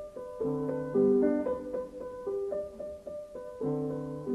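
Piano music: a melody of single notes over low chords, one struck about a second in and another near the end.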